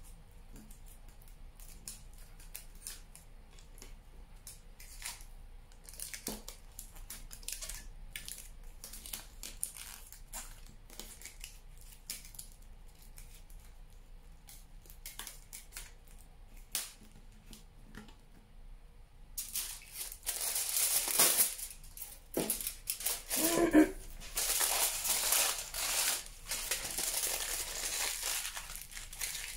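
Aluminium foil crinkling as it is pressed and squeezed around a wire armature: faint scattered crackles at first, then loud continuous crumpling from about two-thirds in as a fresh sheet of foil is crushed in the hands.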